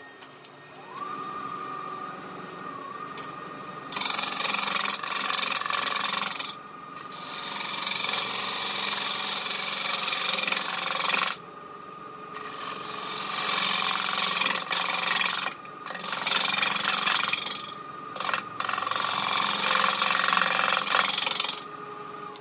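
Robust wood lathe motor starting up to a steady whine, then a bowl gouge cutting the outside of a spinning maple burl with epoxy-filled voids: a loud hiss of the cut in several passes of a few seconds each with short pauses between them. The cutting stops shortly before the end.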